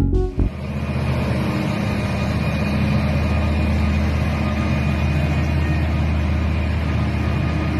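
Heavy diesel engine of a giant mining excavator running steadily with a deep, even hum, starting just after a burst of electronic music ends.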